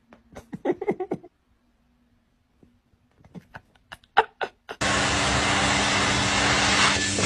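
A vacuum cleaner running steadily, starting suddenly about five seconds in, with a low hum under its rushing noise. Before it there are only a few brief sounds in near quiet.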